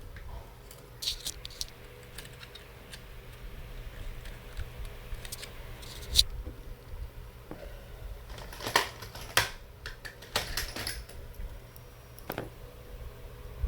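Small irregular clicks, taps and scrapes of laptop parts and small tools being handled during disassembly, with the sharpest clicks about six and nine seconds in.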